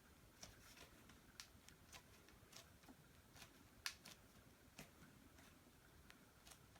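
Campagnolo Eurus bicycle wheel giving sharp, dry clicks as it is twisted hard by hand. The clicks come irregularly, about one or two a second, with one louder snap a little before halfway. It is the same clicking the wheel makes all the time when ridden with the rider's weight on it, and the owner does not know the cause.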